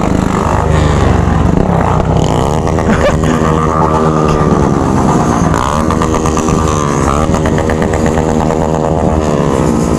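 Yamaha XT single-cylinder motorcycle engine with an open exhaust, heard from the rider's seat: it revs up twice, falling back about halfway through, then holds a steady pitch near the end.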